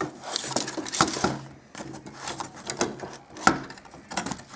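Screws being driven out of a car radio's metal case with a power screwdriver: the motor whirs in short spurts, with many clicks and rattles of screws and sheet-metal parts.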